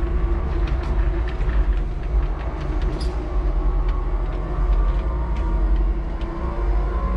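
Five-ton electric forklift truck driving and turning, heard from inside its cab: a steady low rumble with a faint motor hum and many small clicks and rattles.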